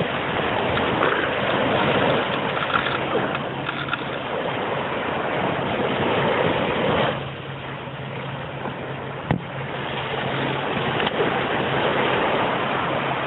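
Ocean surf breaking and washing up onto a sandy beach, a steady rushing noise that eases a little about halfway through.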